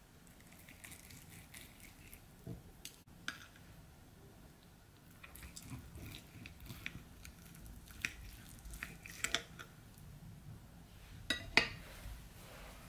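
Table knife and fork cutting a chicken fillet on a ceramic plate: soft scraping with scattered light clinks of metal on the plate, and a sharper pair of clinks near the end.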